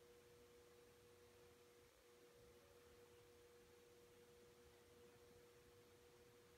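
Near silence: room tone with a faint steady hum on two pitches, briefly dipping about two seconds in.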